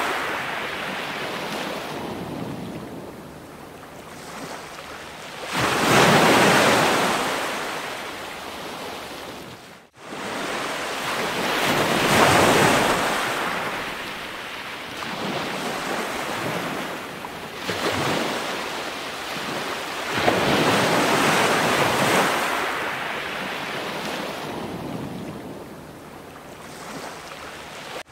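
Ocean surf: waves swelling and washing back every five or six seconds in a steady hiss, with a brief cut-out about ten seconds in.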